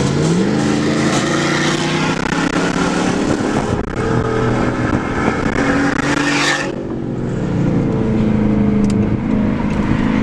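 2014 Dodge Charger R/T's 5.7-litre HEMI V8 under hard acceleration, with heavy wind and road noise. Its pitch climbs near the start and holds high, then drops sharply about two-thirds of the way through as the throttle comes off, settling into a steadier engine note. The hard launch likely spun the tyres.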